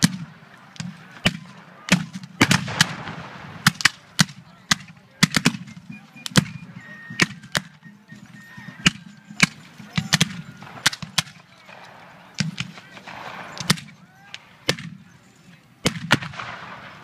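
Black-powder muskets firing blanks in a ragged, scattered battle fire: many sharp shots at irregular intervals, sometimes several within a second, with short gaps between.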